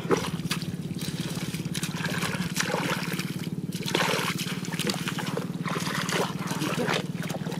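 Hands squelching and sloshing through wet mud and shallow water, in irregular splashes, with a steady low hum underneath.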